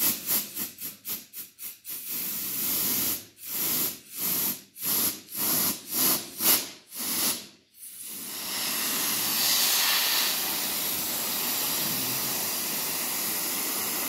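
Compressed-air blow gun hissing, first in short trigger-pulsed bursts, quick at first and then about two a second. About eight seconds in it becomes one continuous steady blast. The air is cooling a freshly hot-vulcanized patch on an inner tube.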